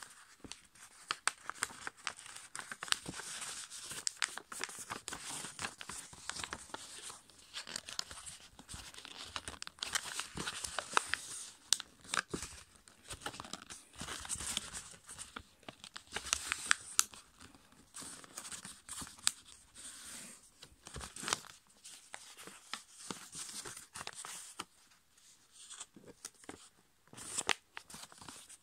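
A sheet of A5 copy paper being folded by hand into a paper airplane: irregular rustling and crinkling, with many sharp clicks as folds are pressed flat against the table.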